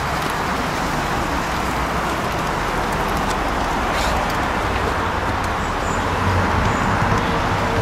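Steady outdoor background noise, like distant road traffic, with no distinct events apart from a brief click about four seconds in.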